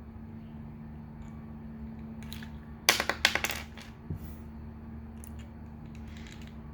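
Hard plastic parts of a Transformers action figure clicking and clacking together as a small accessory is fitted onto the figure's arm, with a quick cluster of sharp clicks about three seconds in. A steady low hum runs underneath.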